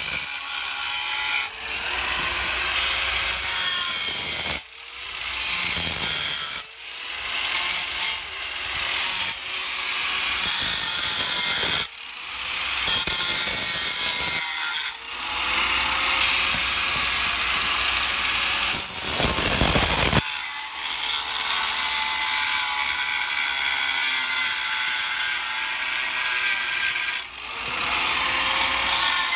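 Ryobi angle grinder cutting into a granite stone in repeated passes, the disc grinding against the rock with short dips every couple of seconds as it comes off the stone and goes back in.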